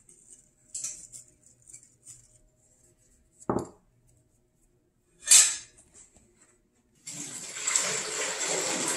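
Kitchen handling sounds: a faint patter of sugar sprinkled by hand over pastries in a metal muffin tin, a small bowl set down on the counter with a knock, then one sharp, loud clatter. For the last two seconds a steady rushing noise runs.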